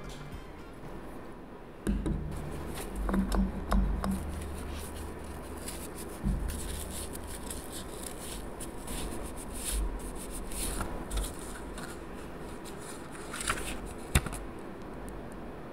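Close-up hand-handling sounds: a cleanser-soaked pad rubbed over gel nails to wipe off the uncured sticky layer, with low bumps, then a clear plastic nail sticker sheet handled with metal tweezers. A sharp click comes near the end.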